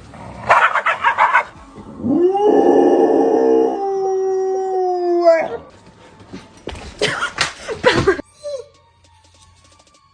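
A dog howling: one long call that rises at the start, holds steady and falls away at the end. Bursts of quick sharp sounds come before and after it.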